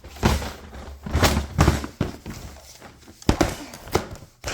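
Handling noise: a series of knocks and rustles as a drawer of small toys is pulled out and moved.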